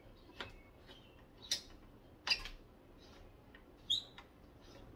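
A few scattered light clicks and ticks from the Thule Hullavator Pro's bolt, washer and track hardware as the bolt is hand-tightened into the track, with a brief high ping about four seconds in.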